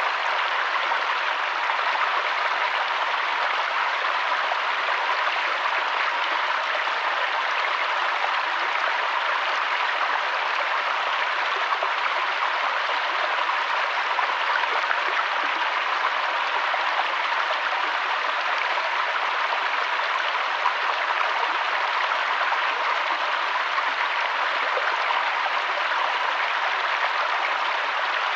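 Mountain waterfall and stream rushing steadily: an even, unbroken wash of water noise.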